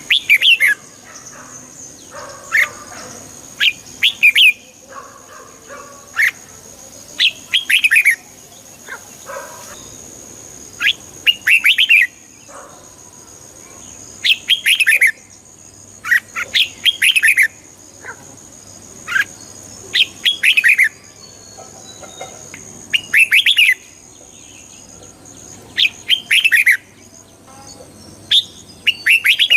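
Red-whiskered bulbul singing: short, loud phrases of quick, falling whistled notes, repeated every two to three seconds. A faint steady high tone runs underneath.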